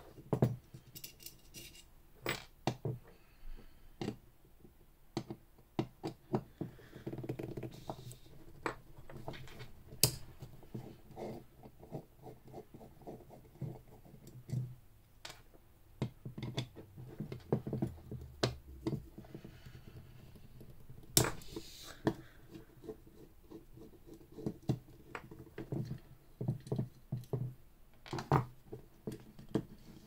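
Screwdriver working screws out of a lever lock's metal case, with scattered irregular clicks, scrapes and small metallic knocks as the lock parts are handled on a desk.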